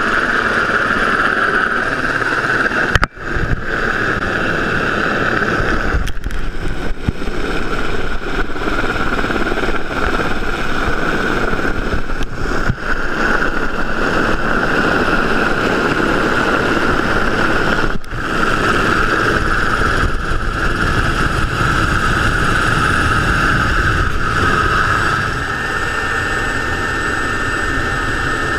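Super Puma helicopter hovering close by, its rotor and turbines running as a steady heavy noise with a high whine on top. Brief dips in the sound are likely edit points, and the whine shifts slightly near the end.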